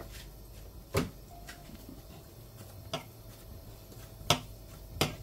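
Hands shaping dough on a stone kitchen countertop: a few sharp knocks, four of them spaced a second or more apart, over a faint steady low hum.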